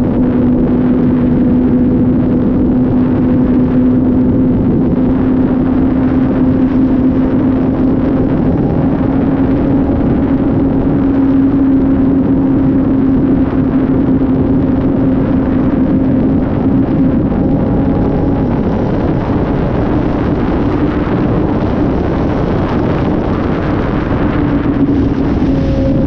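Gen 5 Kawasaki ZX-10R's inline-four engine running at a steady high cruising speed, a held drone that creeps up in pitch and eases off slightly, under a heavy rush of wind.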